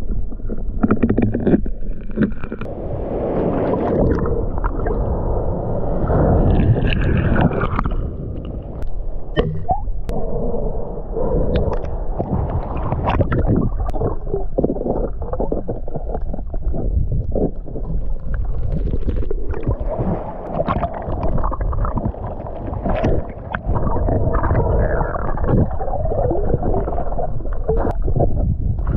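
Muffled underwater sound picked up by a diving camera on a reef: a constant low rush and gurgle of moving water, broken by many small crackling clicks and knocks.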